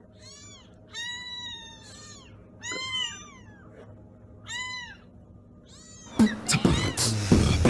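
Young kittens mewing: about half a dozen high, thin mews that rise and fall in pitch, one of them drawn out longer. About six seconds in, loud music cuts in over them.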